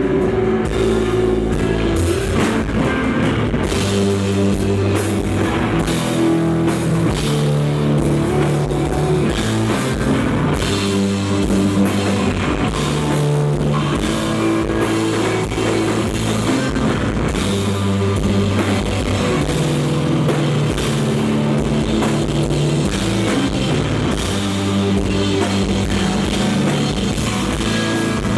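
A live rock band playing an instrumental passage, loud and continuous, with electric guitar, bass and drum kit.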